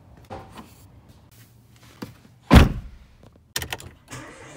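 Car door opened and pulled shut with a loud slam about two and a half seconds in, followed by a few clicks of the key in the ignition and the car's engine starting up near the end.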